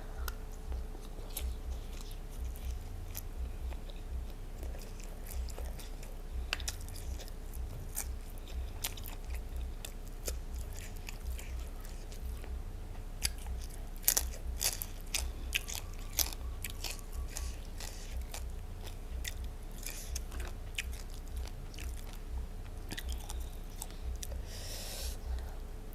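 Close-up chewing of a mouthful of rice with silkworm pupae: steady rhythmic chewing with many sharp crunches.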